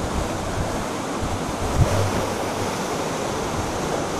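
The Parvati River rushing past in a strong current, a steady wash of water noise. A brief low thump comes about two seconds in.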